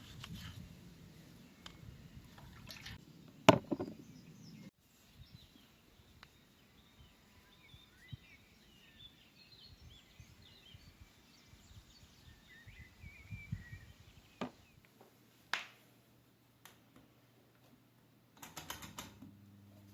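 Faint small-bird chirping in the background, punctuated by a few sharp knocks or clicks, the loudest about three and a half seconds in.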